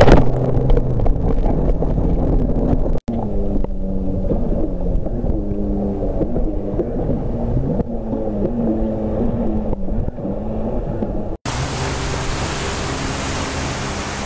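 Jet ski engines running on open water, their pitch rising and falling with the throttle, over wind noise, with a loud burst of spray right at the start. About eleven seconds in the sound changes abruptly to a steady hiss of wind and waves.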